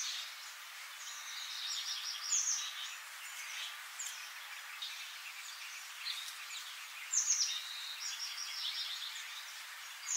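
Birdsong over a steady hiss: short high chirps and whistles that fall in pitch, repeating every second or two, with the loudest calls about two, seven and ten seconds in.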